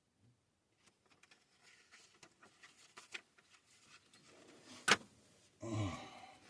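Handling noises: light clicks and rustling, then one sharp click about five seconds in, followed by a short, low vocal sound near the end.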